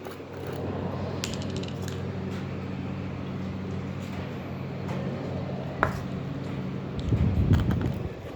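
A steady low mechanical hum, with a few light clicks and taps of a plastic glitter container against a bowl as silver glitter is added to slime. A louder low rumble comes near the end.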